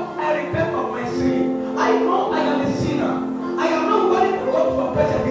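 Church music: sustained keyboard chords with drum hits, and voices singing over it.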